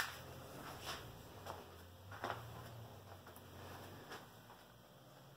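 A few soft, irregular knocks and scuffs, about five in all, over a low steady hum.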